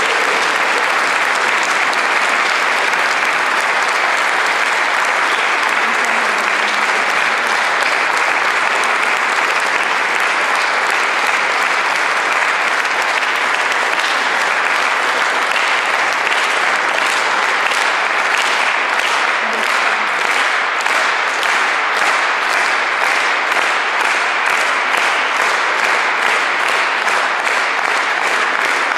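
Audience applauding at length. About halfway through, the clapping falls into a steady unison rhythm of about three claps a second.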